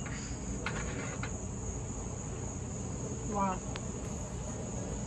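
Crickets trilling: a steady, high-pitched, unbroken insect chorus from the yard. About three and a half seconds in, a person makes a brief voiced murmur.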